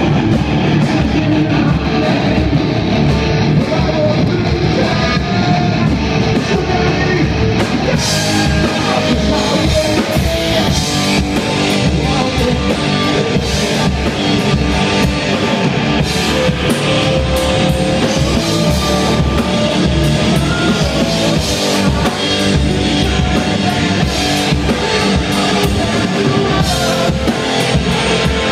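Rock band playing live and loud: electric guitars, electric bass and a drum kit together, with the sound getting brighter about eight seconds in.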